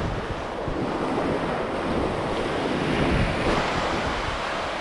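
Small waves washing onto a sandy beach, with wind buffeting the microphone. The wash swells a little past the middle.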